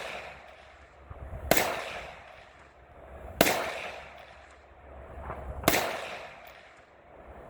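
Three gunshots spaced about two seconds apart, each sharp crack followed by a rolling echo that fades over about a second.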